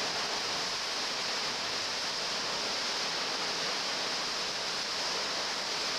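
Hurricane wind and rain on a tin roof, a steady roaring.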